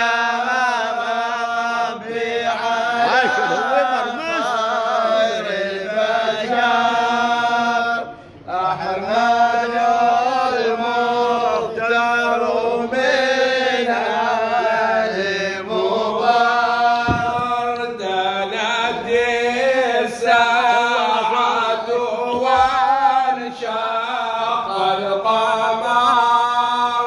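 Men's voices chanting an unaccompanied Arabic devotional praise song (madih) for the Prophet, its lines drawn out in long, wavering melismatic notes. There is a short break about eight seconds in.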